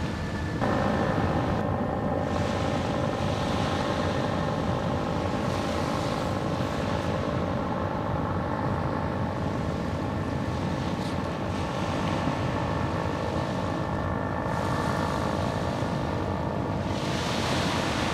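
A steady engine drone with several fixed tones, starting about half a second in, over the wash of small waves breaking on the shore, the wash swelling near the end.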